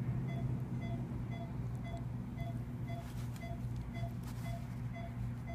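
Patient monitor beeping at an even pace of about two short beeps a second, each beep marking a heartbeat of the anaesthetised cat, over a steady low hum.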